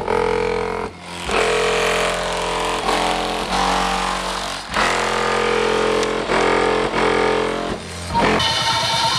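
Loud bass-heavy music played through a 12-inch Addictive Audio V.4 subwoofer in the car's trunk, heard from outside the car. The sound cuts out briefly several times, and near the end a different section of music starts.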